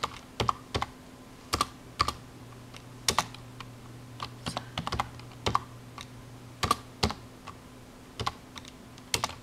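Computer keyboard being typed on slowly and unevenly: single sharp key clicks, about two a second with irregular pauses, over a faint steady low hum.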